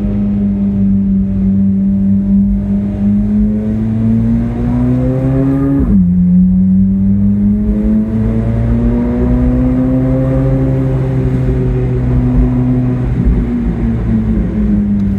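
Chevrolet Corvette C8 Z06's 5.5-litre flat-plane-crank V8 pulling under way. Its pitch climbs, drops sharply about six seconds in as the gearbox shifts up, then rises slowly again and eases off.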